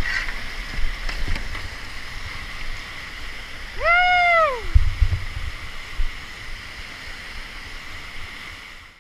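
Rushing whitewater of a steep creek rapid, with low thumps of wind and handling on a helmet-mounted camera. About four seconds in, a single high call rises and then falls in pitch.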